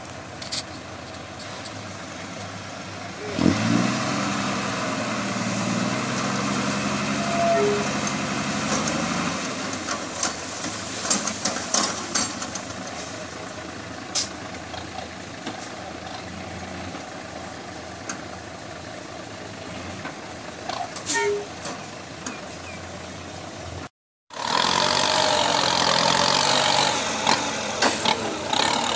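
Diesel dump truck engine revving up sharply about three seconds in and held at speed to drive the hydraulic tipper raising the loaded bed, then running on more evenly. Near the end, after a brief cut, a Kubota tractor's diesel engine is working under load as it pushes soil with its front blade.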